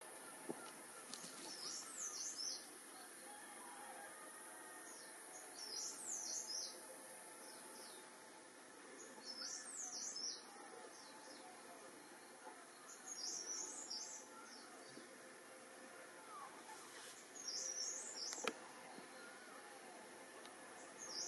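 A songbird repeating a short, high twittering song phrase about every four seconds, six times in all, over faint background noise. There is one sharp click near the end.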